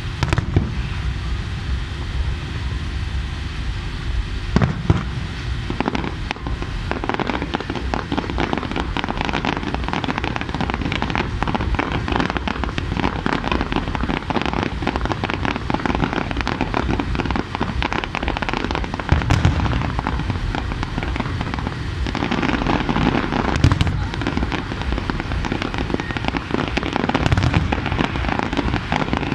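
Aerial fireworks display: shells bursting with deep booms every few seconds, and a long stretch of dense crackling through the middle.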